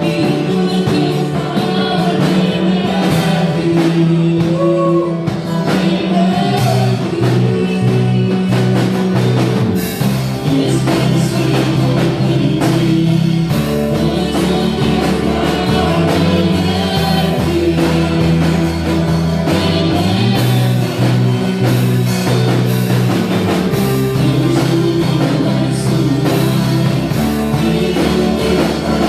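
Worship band playing with singing: bass, guitar and drums under a sung melody, loud and steady.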